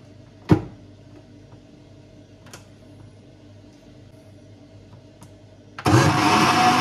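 A sharp knock, then a couple of faint clicks as the blender is set up, and near the end an electric blender switches on and runs loudly, puréeing cooked carrot and lentil soup.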